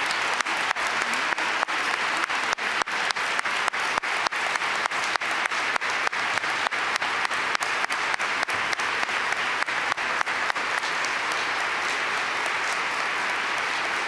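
A large audience applauding steadily, a dense sustained clapping.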